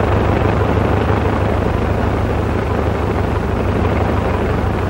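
Biplane's propeller engine running steadily in flight.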